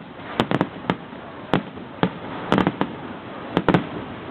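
Fireworks show: a string of sharp bangs at irregular intervals, several coming in quick clusters.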